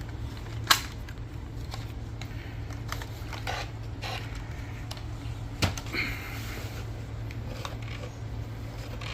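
Scattered clicks and knocks of plastic vacuum cleaner parts being handled, two of them sharper, over a steady low hum.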